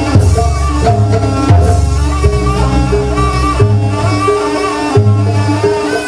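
Live jaranan ensemble playing East Javanese traditional music: deep, repeated drum strokes under a held, wavering melodic line.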